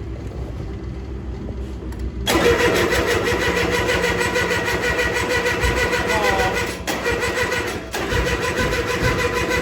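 Three-cylinder Kubota diesel of a G6200 lawn mower starting about two seconds in and then running steadily, over a lower engine rumble already there.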